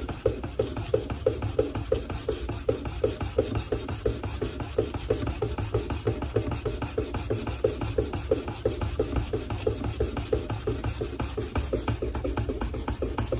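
Hand-sanding a knife blade with sandpaper: even back-and-forth scraping strokes, about three a second, without a break.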